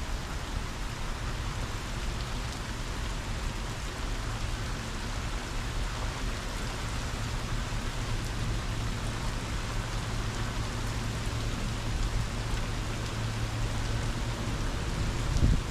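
Steady heavy rain falling, with a low steady rumble underneath.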